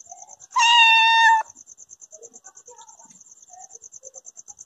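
A cat gives one long, steady meow about half a second in, lasting nearly a second. Underneath, crickets chirp continuously in a high, even pulse.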